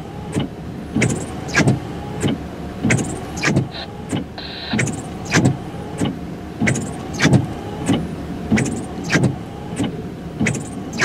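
A car's windshield wipers sweeping back and forth over a rain-wet windshield: a quick, even stroke about every two-thirds of a second, each turn with a short squeak.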